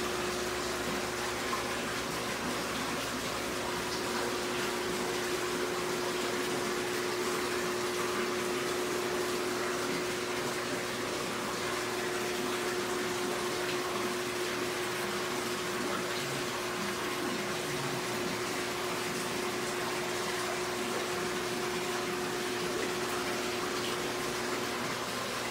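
Aquarium water circulation: a steady rush of filter water and air bubbles, with a constant hum under it.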